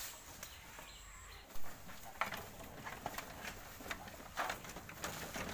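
Goats feeding at a wooden trough: leafy fodder rustling, with irregular knocks and clicks. One sharp knock about one and a half seconds in is the loudest sound.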